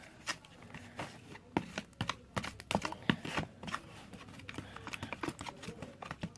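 A stirrer clicking and scraping against a bowl as glue and borax solution are mixed into slime: quick irregular taps, busiest in the first half and thinning out towards the end.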